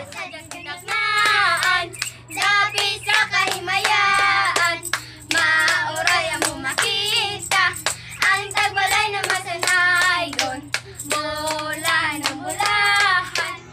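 Children singing a Christmas carol together while clapping their hands in a steady rhythm.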